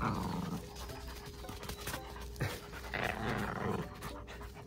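Dogs panting and making short grainy play noises while tugging at a rope toy, loudest in two bursts: one right at the start and one about three seconds in.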